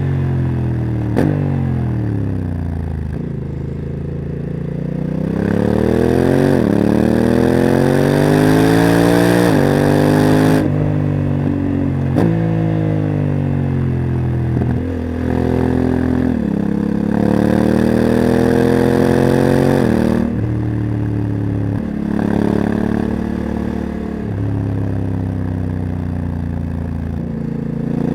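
Honda CRF1100 Africa Twin's parallel-twin engine with a Leo Vince exhaust, riding and accelerating repeatedly. The pitch climbs, then drops as the DCT automatic gearbox shifts, and falls back as the rider eases off between pulls.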